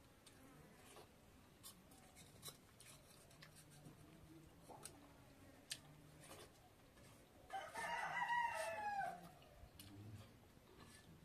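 A rooster crowing once, about seven and a half seconds in, a single call lasting about a second and a half over faint scattered ticks.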